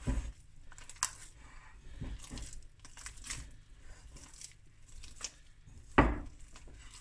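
Hands squeezing and mixing sticky bread dough with softened butter in a glass mixing bowl: soft squishing and scraping with scattered small clicks against the glass, and one louder thump about six seconds in.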